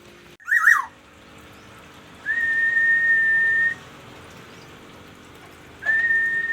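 Clear whistling: a short wavering note that falls away about half a second in, then two long whistles held steady at one pitch, each about a second and a half.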